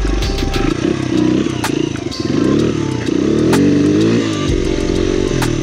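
Small dirt bike engine under way, revving up and easing off several times so its pitch climbs and drops, with sharp clicks of gravel scattered through.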